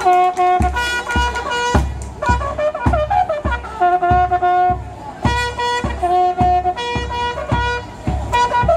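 Bugle-and-drum band playing a march: several bugles sound held notes together over a steady bass-drum beat and snare-drum strokes.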